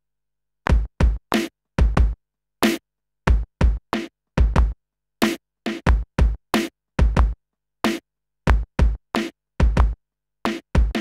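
Hip-hop drum loop at 92 BPM played from an Ultrabeat hip-hop drum kit. The kick, snare and hi-hat notes are MIDI converted from hand-clapped patterns and are not yet quantized, so the groove is slightly loose, and the hi-hats are very quiet under the kick and snare. The loop starts about a second in.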